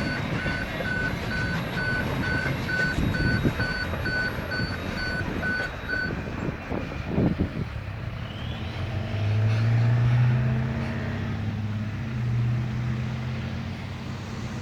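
Railway level crossing warning bells beeping rapidly over a steady rumble, then cutting off about six seconds in. A low engine drone rises from about nine seconds in and then fades.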